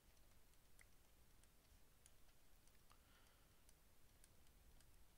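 Near silence, with faint scattered clicks of a stylus tapping and stroking on a tablet's writing surface as words are handwritten.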